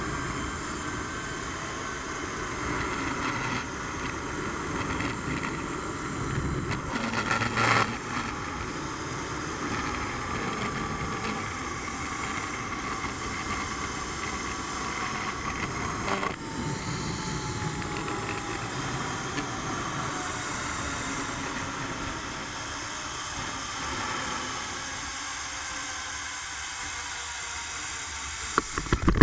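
Zip-line trolley pulleys running along the steel cable, with wind rushing past: a steady rushing noise carrying a thin whirring tone that slowly falls in pitch as the ride slows. Near the end a few sharp knocks come as the trolley reaches the landing platform.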